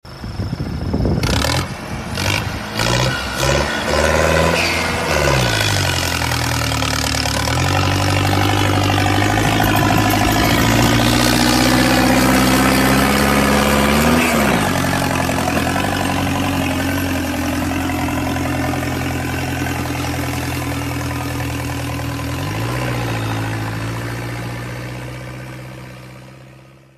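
Mahindra 475 tractor's diesel engine working hard under the load of a fully laden trailer. A few sharp knocks come in the first seconds, then the engine runs steadily, its pitch sagging and recovering a few times as it labours. It fades out at the end.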